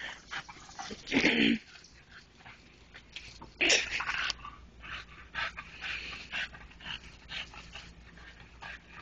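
A dog vocalising in short, irregular noisy bursts, the loudest about a second in and again around three and a half seconds, among scattered light knocks and scrapes.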